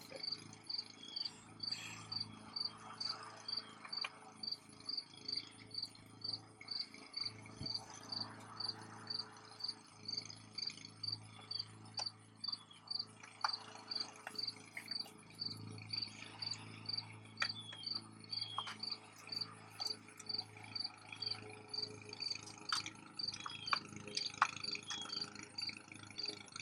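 A cricket chirping steadily, about two chirps a second, with a few scattered faint clicks and clinks.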